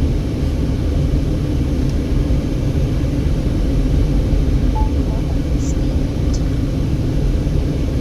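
Steady low road and engine rumble of a car driving slowly, heard from inside the cabin.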